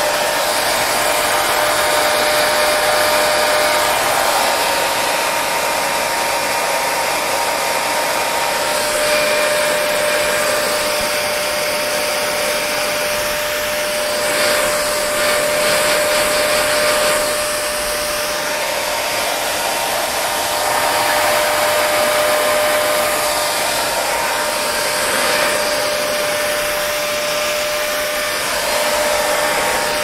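Parlux 3500 hair dryer running continuously: a steady rush of blown air with a faint constant whine underneath. Its loudness rises and falls slightly every few seconds.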